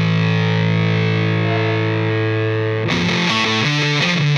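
Background rock music with distorted electric guitar: a long held chord, then a quick riff of changing notes about three seconds in.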